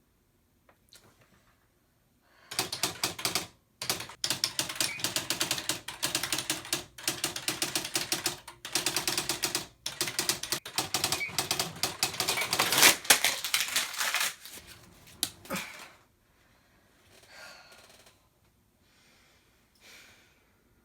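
Typewriter being typed on in fast runs of keystrokes with a few brief pauses between them, lasting about thirteen seconds and then stopping; a couple of faint knocks follow.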